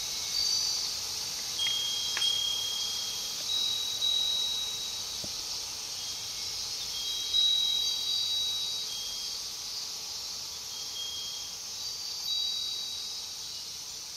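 Furin (Japanese wind bell) ringing in the breeze: every few seconds the clapper strikes, leaving clear high tones that hang for about a second. Behind it runs the steady high hiss of insects.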